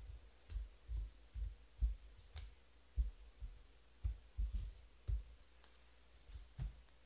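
About a dozen soft, irregular low thumps, with a faint click about two and a half seconds in, typical of cards and hands being set down on a tabletop near the microphone.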